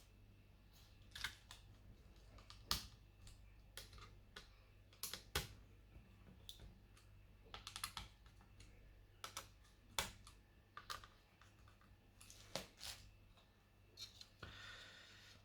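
Faint, irregular clicks and taps from hands working on a laptop, with a short scrape near the end.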